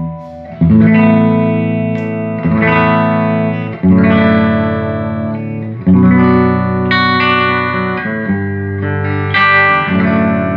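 Electric guitar through a 1975 Fender Twin Reverb Silverface tube amp, freshly restored and being sound-tested. Full chords are struck and let ring, a new one every second or two, with a fairly clean tone.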